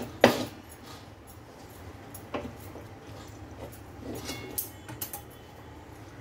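Wooden rolling pin knocking and scraping against a steel kadhai while stirring rice flour into boiling water to make ukad dough. There is a sharp knock just after the start, with a few lighter knocks later, and a short metallic ring from the pan about two-thirds of the way through.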